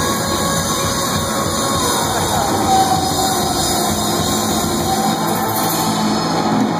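Live rock band playing loud amplified rock, with electric guitars, filling the sound in a dense, steady wash.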